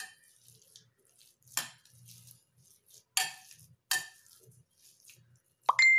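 Stainless steel potato masher mashing boiled potatoes in a glass bowl, its plate clinking sharply against the glass about four times with a short ring, and faint dull knocks in between.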